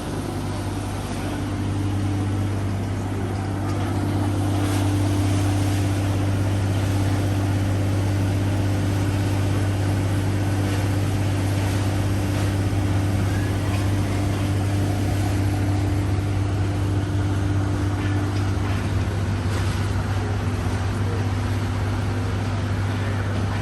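Steady low mechanical drone, like an idling engine or building plant machinery, holding one pitch, over general urban background noise.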